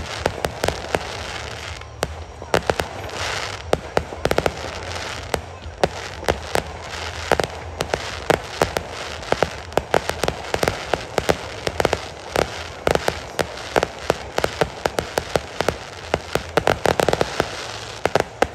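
Fireworks going off in a dense barrage: many sharp bangs in quick succession over a continuous crackle.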